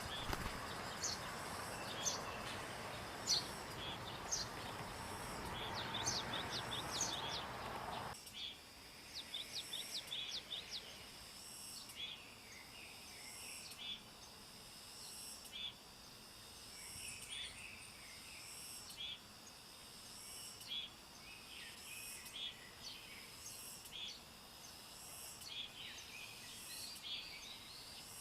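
Short, sharp bird chirps over a high, evenly pulsing insect chorus. A broad background hiss cuts off suddenly about eight seconds in.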